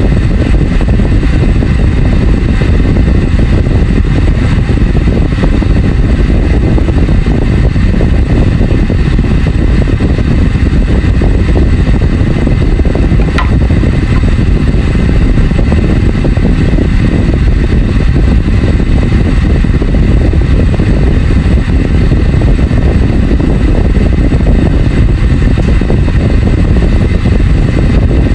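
Shrimp boiling hard in a covered frying pan with a glass lid: a loud, steady, rumbling bubbling, with one small click about halfway through.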